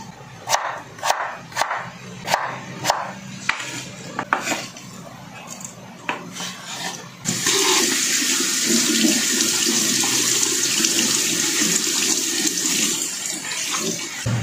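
A chef's knife chops potato on a bamboo cutting board in a steady run of strokes, nearly two a second, then a few scattered knocks. About seven seconds in, a kitchen tap turns on and water runs steadily into the sink over vegetables being rinsed in a wire strainer; the running water is the loudest sound.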